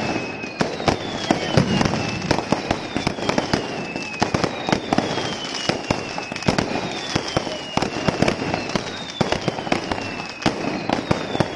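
Aerial fireworks display: a dense, continuous barrage of bangs and crackling bursts. A high whistle that slides down in pitch recurs every second or so through it.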